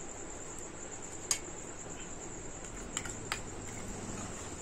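Crickets trilling steadily in the background. A few light clinks of a steel spoon scraping a small steel bowl come about a second in and again around three seconds.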